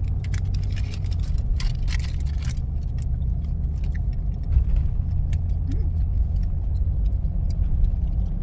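Steady low rumble of a car running, heard from inside, with a brief patch of rustling and clicks about two seconds in.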